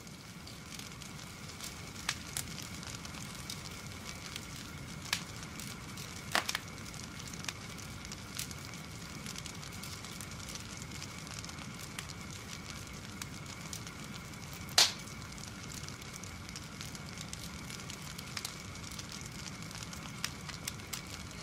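Campfire crackling steadily, with scattered sharp pops, the loudest about fifteen seconds in.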